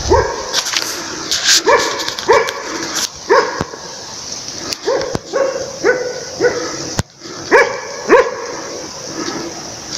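Hunting laika barking repeatedly at an irregular pace, about a bark every half second to a second: bay barking at an elk it is holding.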